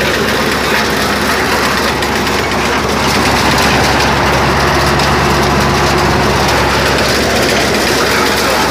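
Motorised corn sheller running steadily, its engine and threshing drum making a loud, continuous mechanical noise with a low hum. It grows a little louder about three seconds in.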